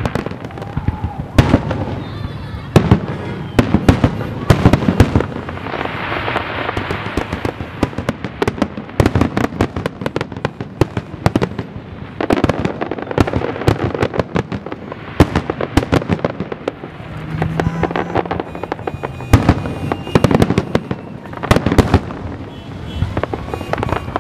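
Aerial fireworks shells bursting in rapid succession: a dense run of sharp bangs, several a second, overlapping one another.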